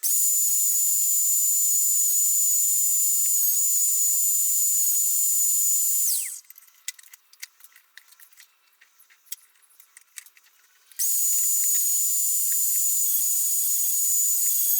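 High-speed wood router, likely cutting into a solid stave snare-drum shell, running with a steady high-pitched whine and hiss. About six seconds in it is switched off and winds down with a falling whine, followed by a few seconds of light clicks and knocks. Just before eleven seconds it starts again and keeps running.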